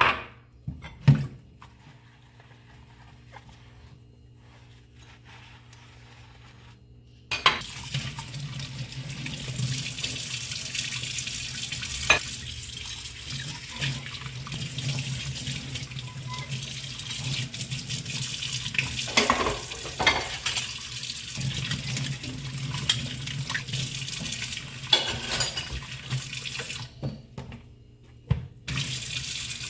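Kitchen tap running into the sink, turned on about a quarter of the way in and running steadily while dishes are washed, with occasional knocks of dishware. Before the water starts there are a couple of sharp knocks, and the flow stops briefly near the end before running again.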